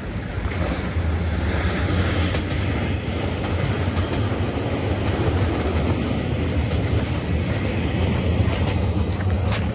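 Loud, steady low rumble of a passing vehicle under a noisy wash, growing louder about a second in.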